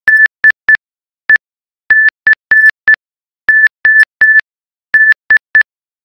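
Computer-generated Morse code: a single high sine tone keyed on and off into short and long beeps (dots and dashes), with silent gaps between the letters. It spells out the text "let's decode".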